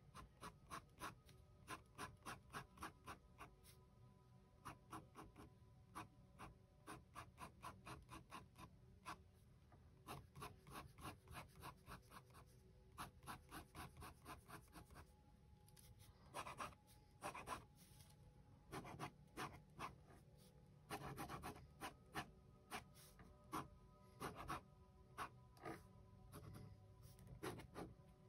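Pen nib scratching on sketchbook paper in quick short strokes, about four a second, in runs broken by brief pauses, as lines are hatched in. Faint.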